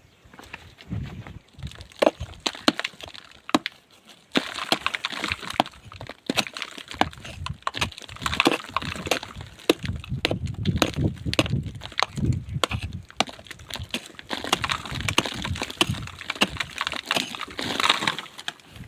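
Irregular sharp knocks and cracks, with a scraping, crunching noise between them that thickens a few seconds in.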